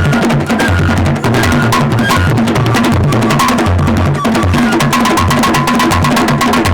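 Idoma traditional drums playing a dense, steady rhythm of deep booming strokes under many sharp, quick strikes.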